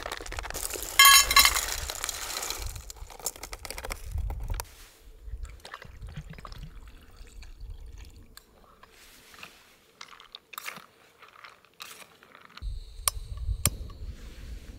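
Camp cooking gear and food packaging being handled while a meal is prepared: scattered clicks, knocks and rustles, with a loud burst about a second in.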